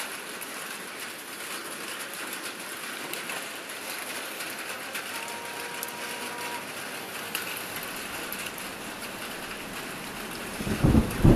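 Wood fire crackling in a metal brazier: a steady hiss with scattered small pops and snaps. Near the end a much louder sound cuts in.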